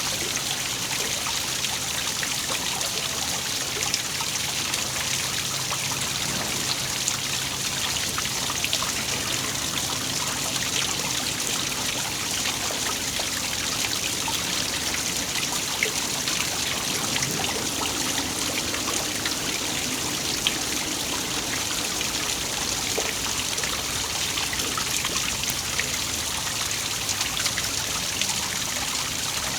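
Waterfall: falling water splashing and trickling in a steady, unbroken hiss, with small splashes throughout.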